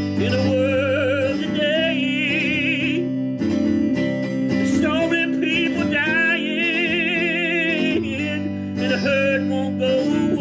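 Music: a voice holding long, wordless sung notes with strong vibrato over acoustic guitar accompaniment.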